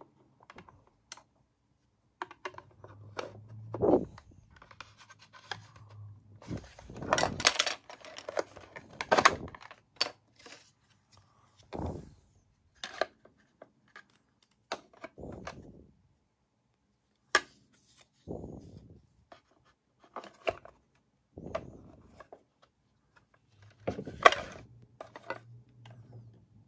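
Black plastic housing parts of a Bodum electric coffee grinder being handled and fitted together during reassembly: scattered clicks, knocks and short rubbing scrapes of plastic on plastic.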